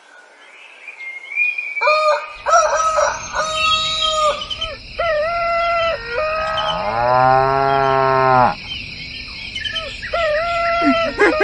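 Farm-animal sound effects: a run of short calls, then one long cow moo a little past halfway, then more short calls near the end, over birds chirping.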